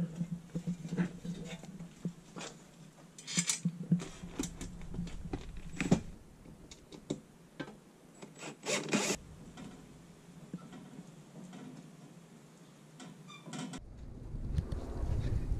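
Sheet-metal breaker-panel cover being handled and fastened on: clicks, knocks and scrapes of metal, with a few short bursts from a cordless drill/driver running screws about 3 s and 9 s in. Near the end it changes to a steady low rumble.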